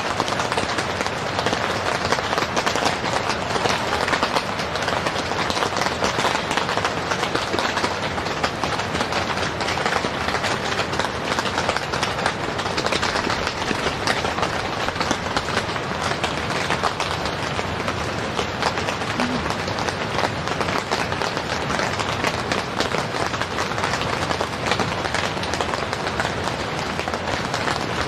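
Heavy rain pattering steadily and densely on a tent.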